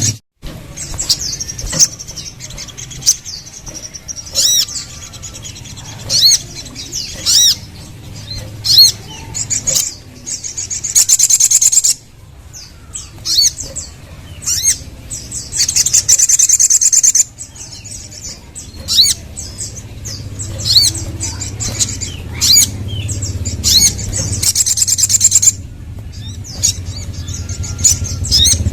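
Sogok ontong (sogon, little spiderhunter) calling in loud, sharp, high chirps at an irregular pace. It breaks into long rapid high trills about 11, 16 and 24 seconds in. A low steady hum runs beneath.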